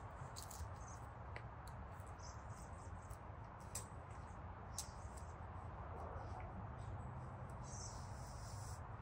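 Evening woodland ambience: faint, scattered short high chirps from small birds, with a longer high trill near the end, over a steady low background rumble.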